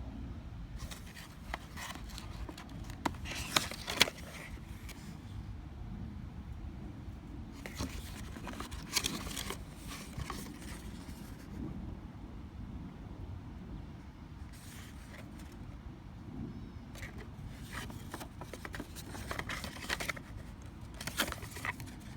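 Packaging being handled and opened, crinkling and rustling in several separate spells with sharp clicks among them, over a steady low hum.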